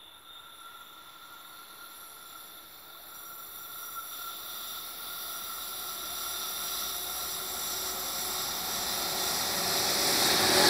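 ÖBB Railjet express behind a Taurus electric locomotive approaching at speed: a rising hiss from the rails and running gear that grows steadily louder, with a few faint steady high tones over it.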